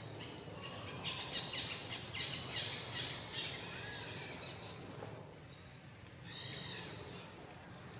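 Birds chirping: a quick run of short calls in the first few seconds and another burst near the end, over steady faint background noise.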